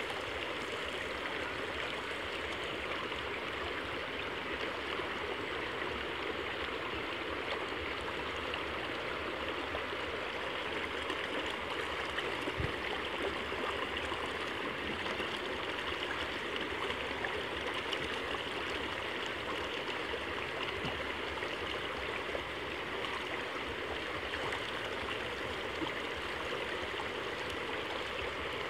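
Fast, shallow creek water rushing steadily through grass and reeds, with one light knock about halfway through.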